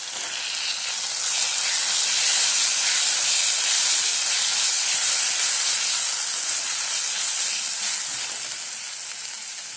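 Tomato purée and pav bhaji masala frying in hot oil in a kadhai while being stirred with a wooden spatula. A steady sizzling hiss swells a little after about a second and eases off toward the end.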